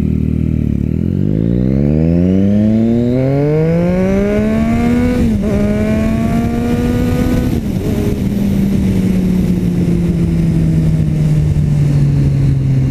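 Motorcycle engine through a newly fitted aftermarket carbon exhaust, pulling hard with rising revs. It shifts up twice, once about five seconds in and again a couple of seconds later, then settles to a steady note that slowly eases off.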